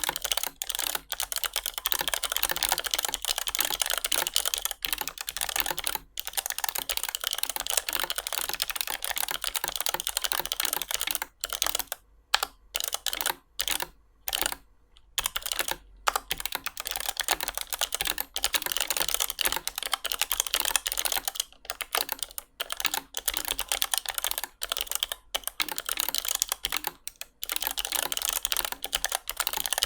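Typing on a Tecware Phantom L low-profile mechanical keyboard with Outemu Snap Spring blue clicky switches: a fast, steady run of keystroke clicks, with a few brief pauses around the middle. Each click comes from a snap spring inside the switch rather than a click jacket on the stem.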